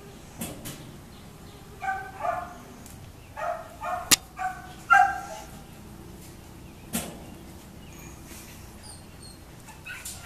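A dog barking: about six short, high barks, mostly in pairs, between two and five seconds in. A few sharp clicks are also heard, the sharpest just after four seconds.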